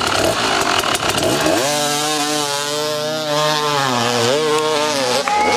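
Dirt bike engine held at high revs with a buzzing, chainsaw-like note, its pitch wavering and dipping briefly before it drops off near the end. It follows about a second of rough, clattering noise.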